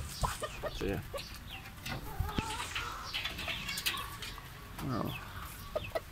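Chickens clucking softly while pecking at watermelon held out by hand, with short sharp taps from their beaks striking the fruit.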